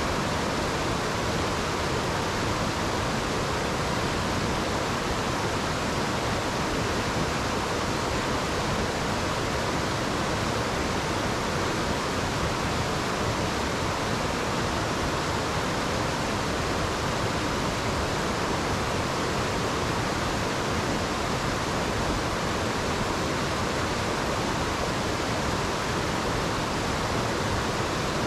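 Mountain stream rushing over rocks, a steady, even roar of water that does not change.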